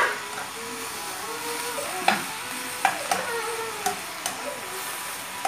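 Baby kailan stir-frying in a hot pan: a steady sizzle as a spatula tosses the greens, with several sharp clicks of the spatula against the pan.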